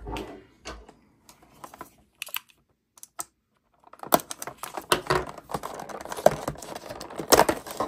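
Clicks, scrapes and creaks of a clear plastic watch shipping case being handled, with a pocketknife blade cutting the tape that holds it shut, then the case worked open. A few scattered clicks, a mostly quiet stretch, then a dense run of clicks and scrapes from about four seconds in.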